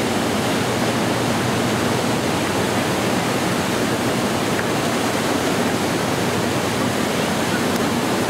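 Maria Cristina Falls, a tall waterfall, pouring down with a steady, unbroken rush of falling water.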